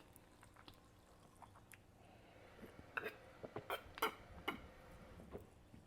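Faint close-up mouth sounds of eating and drinking: scattered soft clicks and smacks, more frequent in the second half.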